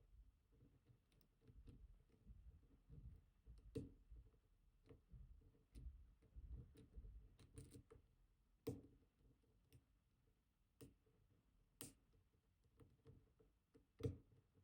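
Faint, scattered clicks and light scraping of a lock pick working the pins of an ASSA Twin Combi high-security lock under tension, with a few sharper clicks spread through the stretch.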